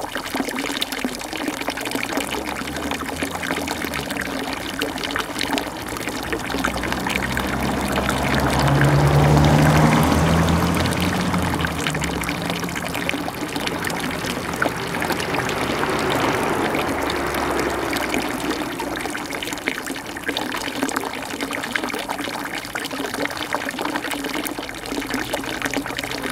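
Steady trickling of running water. A vehicle passes on the road, its low engine hum swelling and fading with the loudest point about nine to ten seconds in, and a fainter swell a little later.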